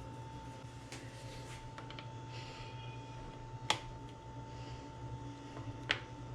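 Two sharp clicks, a couple of seconds apart, over a faint steady electrical hum.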